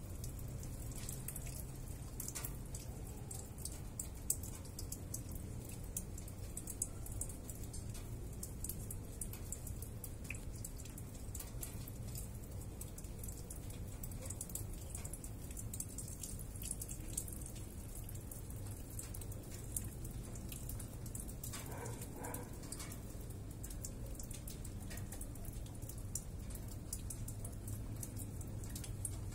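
Rain falling during a thunderstorm, with steady close drips and many single drops ticking on a hard surface. A short faint call sounds about three-quarters of the way through.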